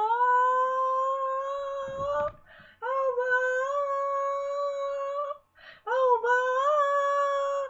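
A woman singing unaccompanied, holding three long wordless notes with short breaths between them.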